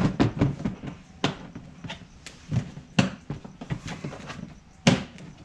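Grey plastic grass catcher parts of a Victa Classic Cut lawn mower knocked and clicked together as they are handled and fitted: a string of sharp plastic knocks, the loudest about a second in, at three seconds and near the end.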